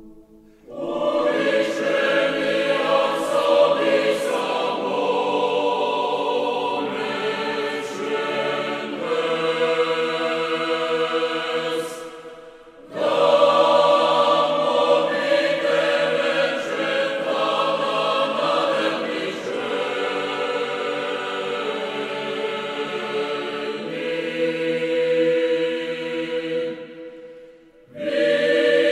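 Background music: a choir singing slow, sustained chords, breaking off briefly twice, a little before halfway and near the end.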